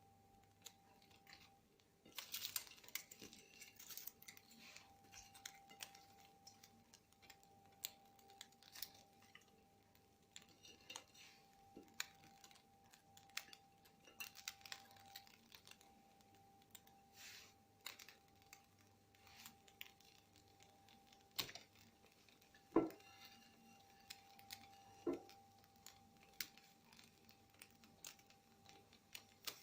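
Faint kitchen handling sounds: scattered rustling, tearing and light clicks of ingredients and utensils, with two sharper knocks near the end, over a faint steady hum.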